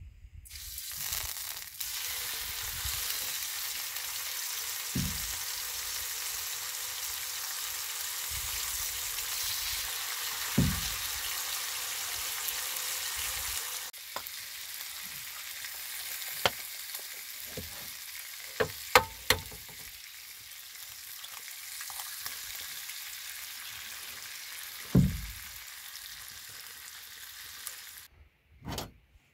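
Bacon sizzling in a hinged square frying pan on a portable gas stove. The frying hiss starts about a second in, drops a little in level about halfway and stops shortly before the end. A few sharp clicks and low knocks, loudest in the second half, come from handling the pan and utensils.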